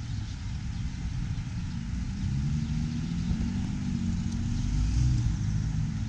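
A passenger car driving slowly past at close range, its engine hum swelling to a peak about five seconds in and then easing as it moves away, over a steady low rumble.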